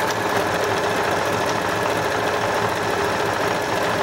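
Janome DC 4030 computerized sewing machine running steadily at speed, its motor and needle mechanism going with a fast, even stitching rhythm as it sews a stretch stitch through knit fabric.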